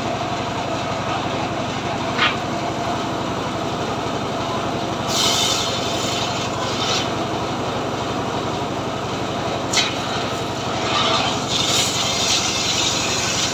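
Engine of a homemade circular sawmill running steadily with the saw blade spinning, with a couple of short knocks and spells of higher hissing noise.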